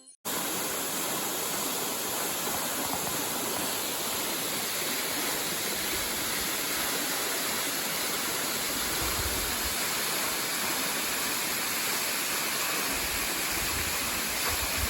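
Waterfall: a steady rush of falling water, even and unbroken, with a few faint low rumbles in the middle and near the end.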